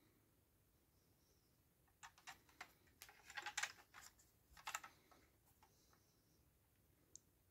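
Soft handling noise: a quick run of small clicks and taps lasting about three seconds as a diecast model bus is turned over in the hand, then one more click near the end.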